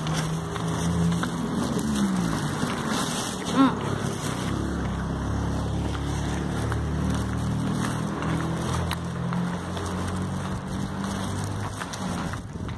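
A motor vehicle engine running close by, its pitch bending up and down about two seconds in, then holding steady. About three and a half seconds in there is a brief, louder pitched sound.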